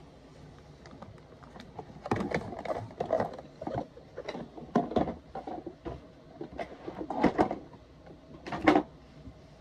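Irregular knocks and clattering of plastic toys being handled and moved, with the loudest knock near the end.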